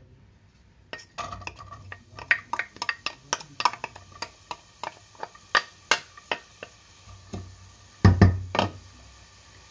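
A wooden spoon scrapes and taps chopped onion and garlic out of a ceramic bowl into a saucepan of oil, making a quick run of clinks and knocks, some of them ringing briefly. About eight seconds in come two heavier knocks.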